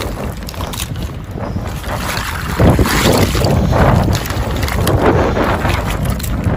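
Wind buffeting the microphone, with shallow seawater sloshing as a net bag of mussels is pulled about and handled; it grows louder about two and a half seconds in.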